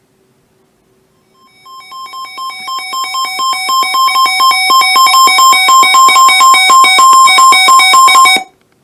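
Weather alert radio's alarm: a rapid two-tone electronic beeping that starts about a second in, grows steadily louder and cuts off shortly before the end, signalling an incoming weather warning.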